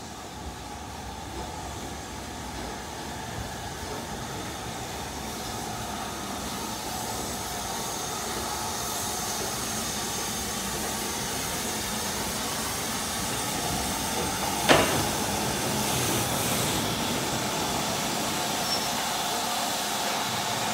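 LMS Jubilee class steam locomotive with its support coach running slowly past, with steam hissing and wheels rumbling on the rails, growing louder as it draws level. A single sharp knock comes about two-thirds of the way through.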